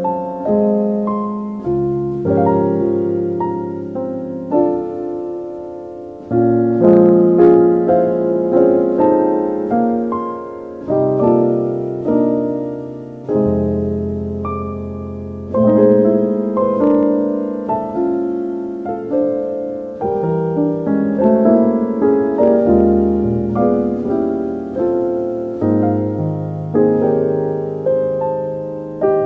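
Slow, soft solo piano music: chords and single notes struck every second or so, each fading away before the next.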